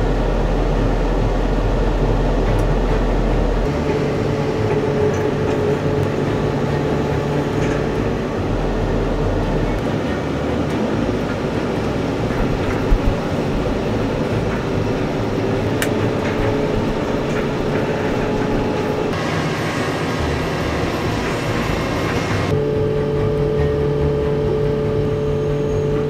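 Inside a tractor cab: the engine runs steadily while the towed steel land roller rumbles over the worked soil, with one sharp clank about halfway through.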